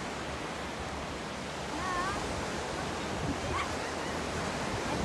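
Waves breaking and washing up a sandy beach: a steady rush of surf. A short distant call is heard about two seconds in.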